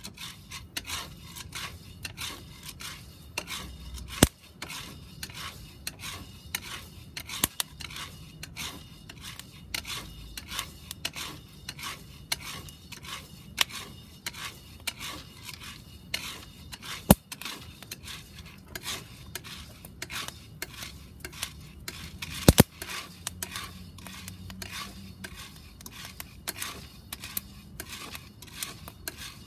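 Coffee beans being stirred with a wooden paddle in a round cast iron pot while they roast: a steady scraping and rattling of the beans against the iron, with a few sharp, louder clicks.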